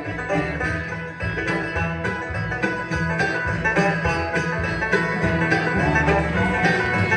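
Bluegrass band playing an instrumental break between verses: plucked strings, banjo to the fore, over a steady beat, with no singing.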